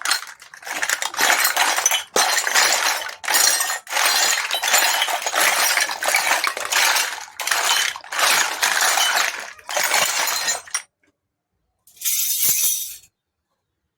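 Small plastic toy kitchen pieces and their packaging being handled, with rapid clinking and rustling in runs of about a second and short breaks. It stops about eleven seconds in, and one last short run follows a second later.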